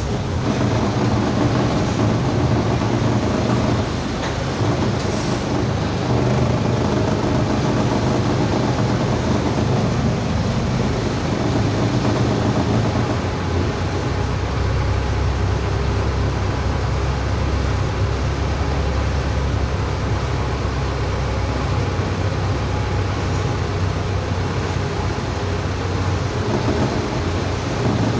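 City bus diesel engine running at low speed during a slow parking manoeuvre, heard from the driver's seat: a steady low drone whose note gets deeper and heavier about halfway through.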